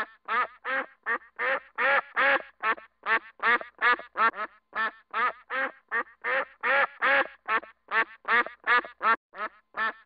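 Duck quacking over and over in a rapid, steady series of short, rasping quacks, about three a second.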